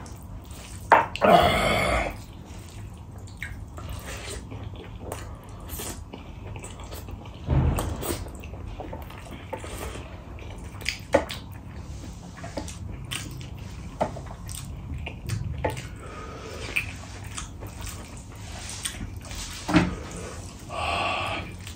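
Close-miked eating by hand: wet chewing and lip-smacking, and fingers squelching through rice and curry on a steel plate. A few louder breathy hisses break in, one about a second in and one near the end, as he breathes against the heat of the king chilli.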